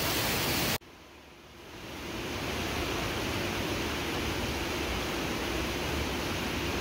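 Indoor pool water rushing and splashing as a steady hiss. It cuts off abruptly about a second in, then the water noise fades back up and holds steady.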